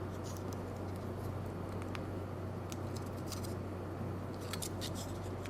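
Faint, scattered clicks and taps of small plastic model-kit parts being handled and fitted, over a steady low hum.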